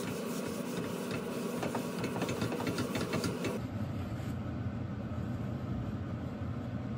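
Paper towel rubbed in quick scratchy strokes over the oiled inside of a hot cast-iron pot being seasoned on a gas burner, over the burner's steady low rushing noise. The rubbing stops about three and a half seconds in, leaving the burner alone.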